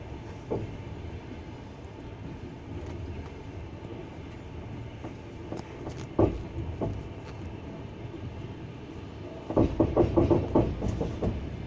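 Wheels of a double-decker passenger train hauled by an EP20 electric locomotive clattering over rail joints: a steady rumble with a single knock about half a second in and a couple more around six seconds in, then a quick run of clickety-clack knocks from about ten seconds in.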